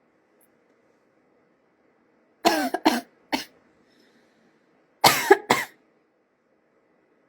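Coughing: a quick run of three short coughs, then a pair of coughs about two seconds later.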